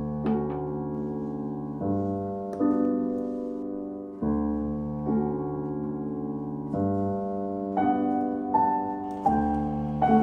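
Background music: slow, soft piano chords, each held for about two seconds before the next.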